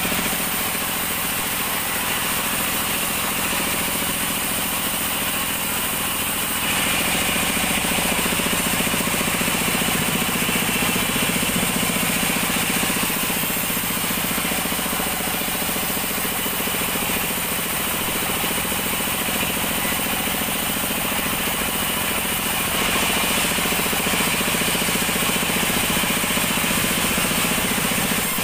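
Band sawmill running steadily while an acacia log is fed through the blade, a dense mechanical hum with a hiss above it. It gets a little louder about a quarter of the way in and again near the end.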